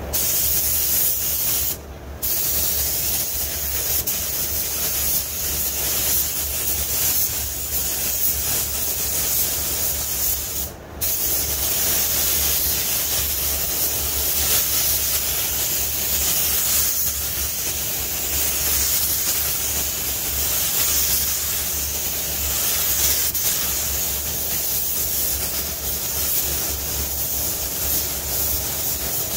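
Paint spray gun hissing steadily as it lays paint on a truck door, with two short breaks, about two seconds in and about eleven seconds in. A low steady hum runs underneath.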